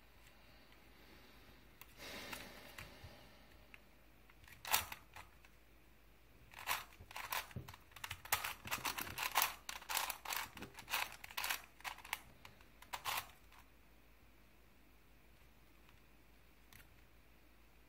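Plastic puzzle cube, a Crazy 3x3 Plus Mars, being turned by hand. A soft rustle comes about two seconds in, then a single click, then a quick run of clicking layer turns from about six to thirteen seconds.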